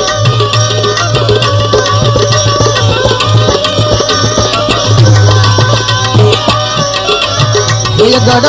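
Instrumental break in a live devotional bhajan: tabla playing quick strokes under a melody instrument holding sustained notes, with no voice.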